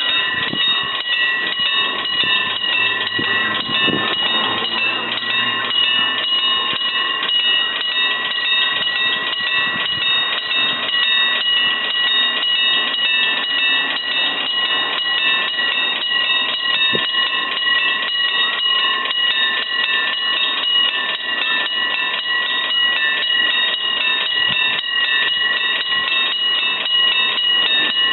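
Electric bell of a railway level crossing ringing without a break: a fast, even metallic trill at one steady pitch, the warning that a train is approaching.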